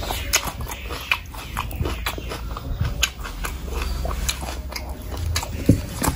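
Close-miked chewing of a mouthful of curry and rice, with many small wet mouth clicks and smacks. Near the end comes a louder wet squelch as a hand mixes rice into curry on the plate.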